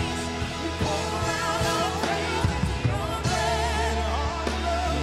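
Live worship band playing, with electric guitars, drums and bass under lead and backing vocalists singing the lines "we pour out our praise, it's your breath in our lungs".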